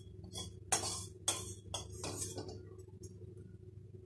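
Metal utensil clinking against a steel plate while fried fish is moved onto it: a handful of sharp clinks in the first two seconds or so, then quieter.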